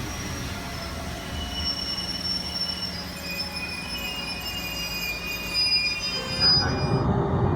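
Train wheels squealing on the rails: several high-pitched tones that come and go over a low rumble, with the rumble growing louder near the end.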